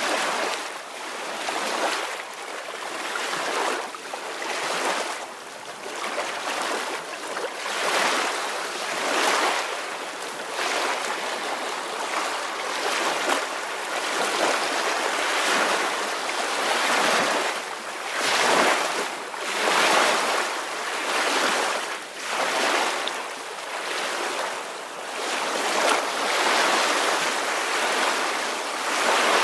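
Ocean waves washing onto a shore, a steady hiss of surf that swells and falls back every second or two.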